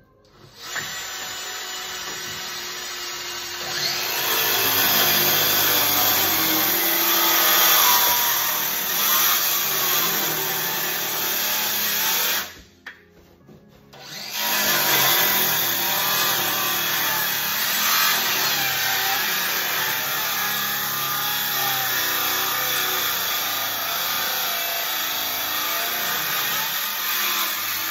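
Battery-powered circular saw running and cutting through a butcher-block slab. It stops about twelve seconds in and starts again a second or two later for another cut.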